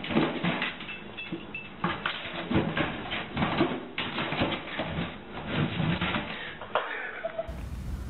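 Pet-door flap knocking and a cardboard package bumping and scraping as a dog shoves it through the door: an irregular run of knocks and rustles.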